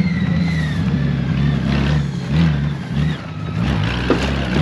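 Honda Gold Wing motorcycle engine running on a rough dirt trail, the throttle opened and eased off several times, with a knock about four seconds in.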